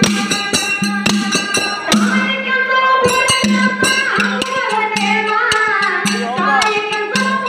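Live Kannada dollu pada folk music: a held chord over a steady drone, with drums and jingling percussion striking throughout. About two seconds in, a woman starts singing through a microphone and PA.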